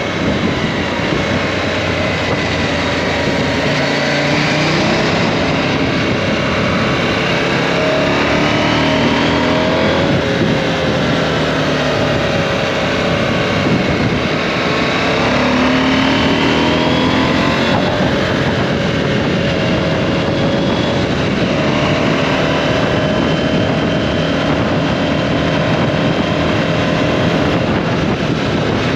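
KTM 790 Adventure's parallel-twin engine running at road speed under a steady rush of wind noise. Its pitch rises and falls several times as the throttle opens and closes through the bends.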